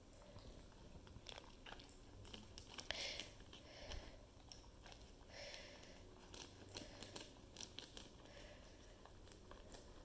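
A standard poodle licking Easy Cheese off a canvas: faint, irregular wet licks and mouth smacks, a little louder about three seconds in.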